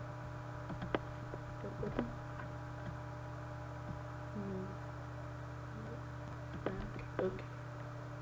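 Steady electrical mains hum with scattered sharp clicks of a computer mouse and keyboard. There are a few clicks in the first two seconds and a few more about seven seconds in.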